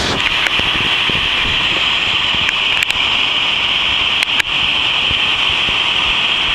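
Niagara Falls' falling water heard close up: a loud, steady rushing noise, with a few small clicks about three and four seconds in.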